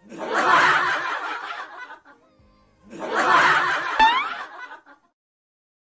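Bursts of group laughter, typical of a canned laugh-track effect: twice, about three seconds apart, with a sharp thump near the end of the second burst.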